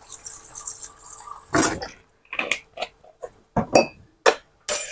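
A glass sauce bottle and a metal spoon being set down and handled on a kitchen counter: a string of short clinks and knocks, several in the last three seconds.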